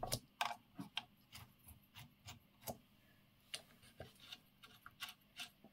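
Faint, irregular clicks and small scrapes of a metal banana plug being twisted and worked in and out of the banana sockets on a WW2 German Funksprechgerät f radio's front panel, cleaning the contacts with cleaning and lubricating spray.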